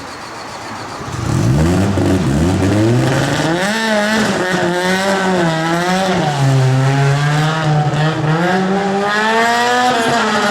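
Rally car engine accelerating hard about a second in, its pitch climbing twice in quick succession as it changes up. It then stays at high revs, the pitch rising and falling as the throttle is worked.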